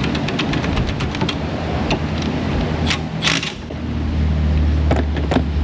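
Metal brake pad hardware clips and pads being handled and fitted: a quick run of light metallic clicks and clinks, then a few louder clattering scrapes. Under them runs a low steady hum that gets louder in the second half.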